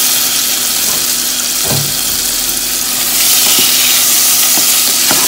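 Pork cubes sizzling loudly in a pan as they fry in their own rendered fat, no oil added, with a spatula stirring and knocking against the pan a few times over a steady low hum.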